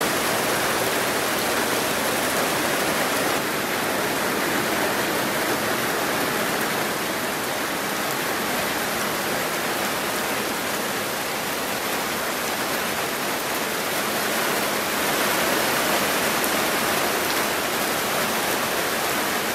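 Heavy rain falling steadily, with runoff pouring off the roof eaves onto the muddy ground.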